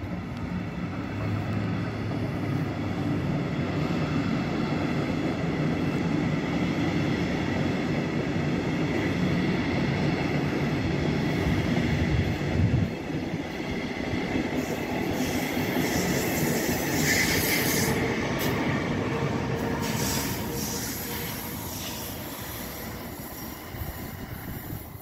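Metronom double-deck passenger train running past on the tracks: a steady rumble of wheels on rail, a short knock about halfway, then wheel squeal and hiss in the second half, fading near the end as the train moves away.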